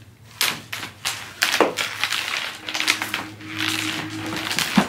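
A cat clawing at the fabric corner of an upholstered ottoman: a run of scratchy rasps and scrapes, over a steady low hum.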